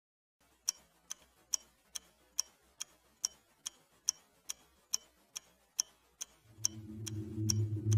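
Regular clock-like ticking, a little over two sharp ticks a second. About six and a half seconds in, a low droning tone swells in beneath it.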